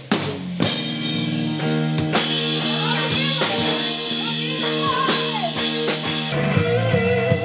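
Live rock band playing: drum kit, electric guitars and bass, with a young woman singing over them. About six seconds in it switches abruptly to a different guitar-led piece.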